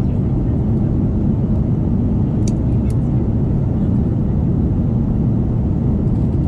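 Steady low rumble of cabin noise inside an Airbus A330 airliner, even and unchanging, with two short clicks about two and a half seconds in.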